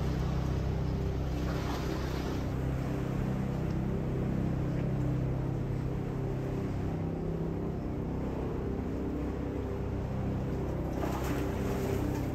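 Steady low drone of a boat engine on the river, holding an even pitch throughout.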